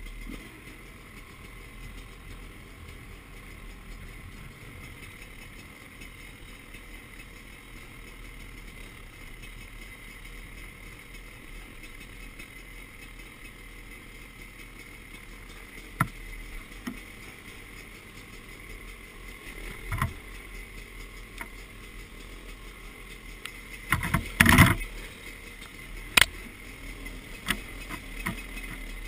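Off-road motorcycles ridden slowly along a bumpy dirt track: a steady low engine hum, with occasional sharp knocks and rattles as the bike goes over bumps, a burst of them loudest near the end.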